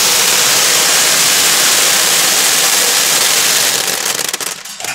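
Corn seed pouring out of a planter's bulk tank down a sheet-metal chute into a tub: a steady rushing hiss of kernels. It tapers off near the end into scattered patters of kernels.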